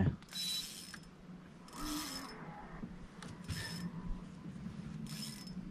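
Okuma Helios SX spinning reel being wound in four short spurts, about one and a half seconds apart, as a hooked squid is reeled in, over a low steady hum.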